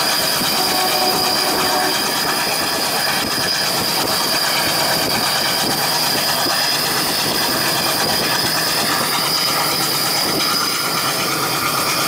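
Passenger train running at speed on rails: a steady rush of wheel and track noise with a constant high-pitched whine over it.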